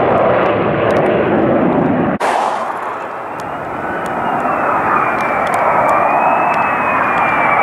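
F-35 fighter's F135 jet engine: a loud, rough jet rumble that breaks off suddenly about two seconds in, then a quieter jet sound with a high whine that wavers slowly in pitch as the aircraft flies by with its gear down.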